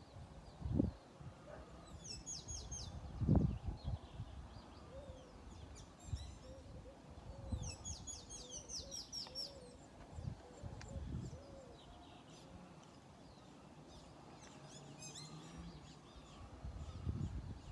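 Small songbirds chirping in quick runs of short, high, falling notes, coming in bursts about two, eight and fifteen seconds in. Short low thumps break in now and then, the loudest about three seconds in.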